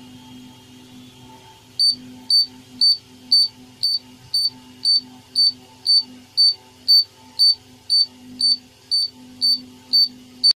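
Piezo buzzer of a BC547 rain-alarm circuit beeping in short high-pitched pulses about twice a second, starting about two seconds in: the alarm set off by water on its sensor plate. Soft background music runs underneath.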